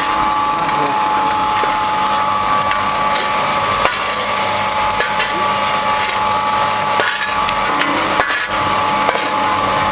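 Coal briquette press running steadily as it extrudes coal-fines rods, a dense grinding mechanical noise with a steady high hum and a few sharp clicks.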